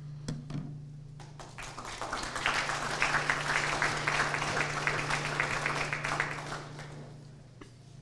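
Audience applauding, building up about two seconds in and dying away near the end.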